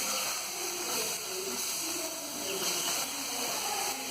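Steady hiss from a wood-fired stove with food cooking on it, with faint voices underneath.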